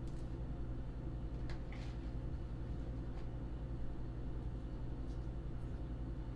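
A steady low hum with a few faint short clicks.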